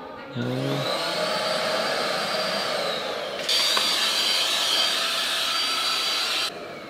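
Cordless stick vacuum cleaner running, its motor whine rising as it spins up. It becomes louder about halfway through and cuts off abruptly near the end.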